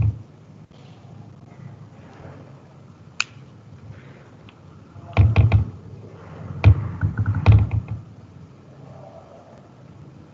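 A sharp click about three seconds in, then clusters of clicks and dull knocks, one group about five seconds in and another between about six and a half and eight seconds, over a faint steady hiss.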